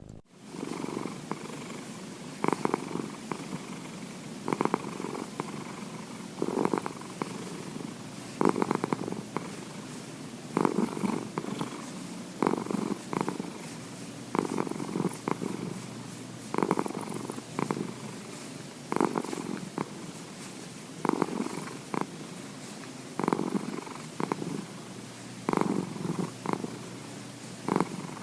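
A domestic cat purring steadily, swelling and easing with each breath, about one breath every two seconds.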